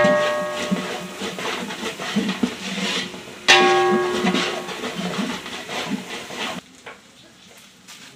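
A long metal ladle stirring and scraping whole spices and small onions in a large aluminium pot. The pot rings out twice when the ladle knocks it, at the start and about three and a half seconds in. The stirring stops abruptly near the end.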